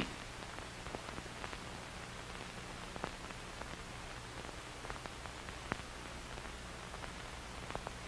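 Faint steady hiss and low hum of an old film soundtrack, with a few faint crackles.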